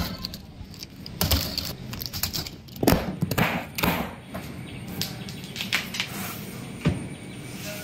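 A cardboard bicycle carton being cut open and unpacked: metal snips and scissors clicking through plastic strapping and packing tape, then the cardboard flaps scraping and rustling with irregular knocks and thumps.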